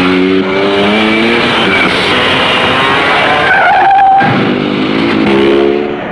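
Car engines revving hard, the pitch climbing, with tires squealing.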